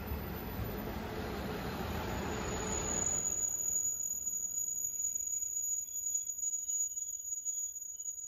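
Koshino Shu*Kura diesel railcar train pulling in slowly alongside a platform. The rumble of the passing cars fades after about three seconds, and a steady high-pitched brake squeal starts about two and a half seconds in and holds as the train slows.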